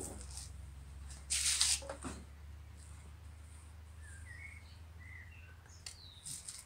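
Quiet garden ambience: a steady low rumble, a brief rustle about a second and a half in, and a few faint bird chirps later on.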